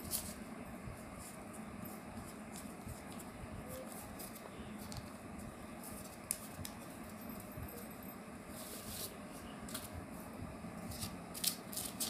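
Newspaper rustling and crinkling as a strip is rolled tightly around a thin stick into a paper tube, with scattered small clicks and crackles over a steady low hum. The crackling gets busier about nine seconds in and again near the end.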